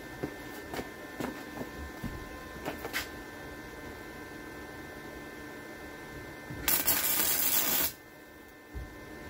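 Electric arc welder striking an arc and running for about a second, a steady noise about seven seconds in that cuts off suddenly. Before it come a few light clicks and knocks from handling the welding gun and the work.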